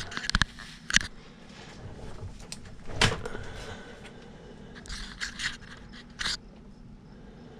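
Handling noise: a few separate knocks, clicks and scrapes close to the microphone, the loudest about three seconds in.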